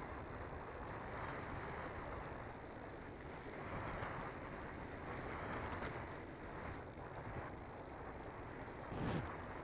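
Air rushing over the onboard camera of a Bixler II Sport foam RC glider in flight, a rough wind noise that swells and fades as it circles, with no steady motor tone. A louder buffet about nine seconds in.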